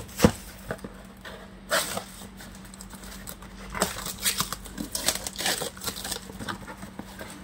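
A cardboard box being opened by hand: a sharp knock near the start, then clear packing tape peeled and torn off the box and the cardboard flaps rustling in a series of short scratchy bursts.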